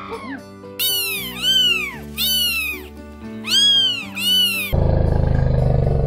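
A monkey giving four high-pitched calls, each rising and then falling, over background music. About five seconds in they give way to a loud, rough, low sound.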